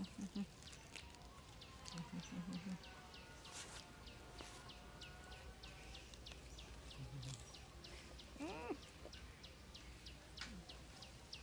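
Faint, steady series of short, high, falling chirps from a calling animal, about three a second. A single short call rises and falls about eight and a half seconds in.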